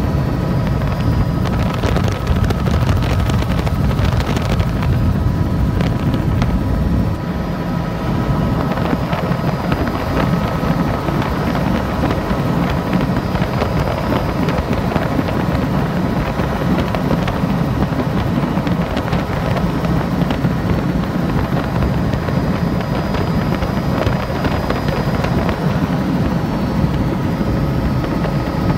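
Helicopter rotor and engine noise heard aboard in flight: a steady low drone with a few steady tones above it. For the first several seconds wind rushes over the microphone.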